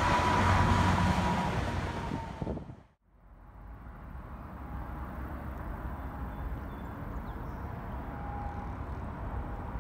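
Semi-truck and highway traffic passing, a loud rushing noise with a low rumble that fades out about three seconds in. After that comes a steadier, quieter outdoor noise.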